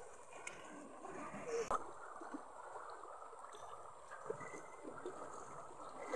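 Shallow stream running over rocks, with a few splashes and knocks as two people wade through the water.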